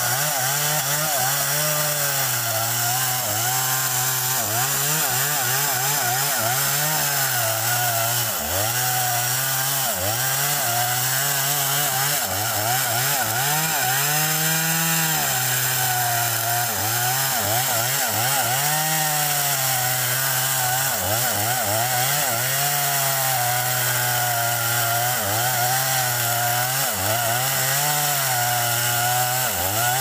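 Petrol chainsaw cutting into a large tree trunk, its two-stroke engine held at high revs with the pitch repeatedly dropping under the load of the cut and picking back up every second or two.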